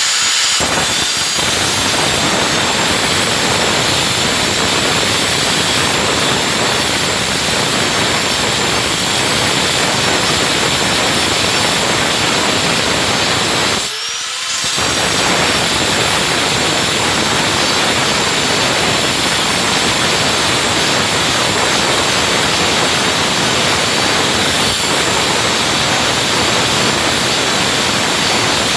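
Circular saw running flat out and cutting, with a steady high whine over a harsh grinding noise. About 14 seconds in it stops for a moment, then spins back up with a rising whine.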